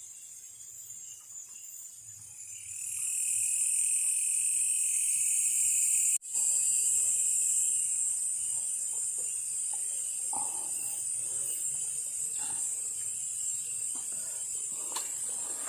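Night-time insect chorus of tropical forest crickets: a steady high-pitched buzz, with a lower trill joining about two and a half seconds in and stopping at a sudden brief dropout about six seconds in. Faint knocks and rustles come in the second half.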